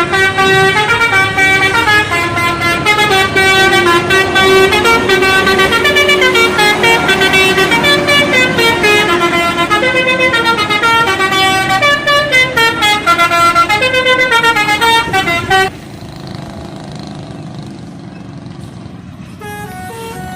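Indonesian bus telolet horn, a set of air horns played as a tune, tootling a melody of quick stepping notes that cuts off suddenly about fifteen seconds in. Near the end a fainter telolet melody starts up.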